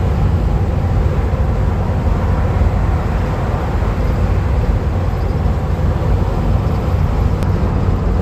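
Steady engine and road noise from a van driving along, a constant low rumble with no changes.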